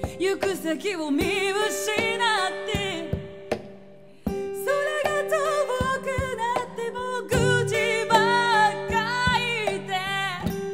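A woman singing live to her own acoustic guitar, regular plucked strokes under held notes. The music fades down about four seconds in, then voice and guitar come back at once.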